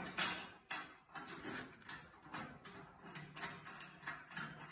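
Irregular light clinks, knocks and scrapes of a steel bolt and nut being fitted by hand through the track setter's pivot-bar lock and bracket.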